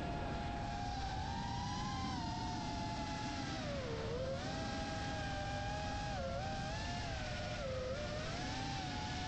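Electric motor and propeller whine of the chase aircraft carrying the camera, rising and falling in pitch as the throttle changes, with a deep dip about four seconds in. Steady wind rush runs underneath.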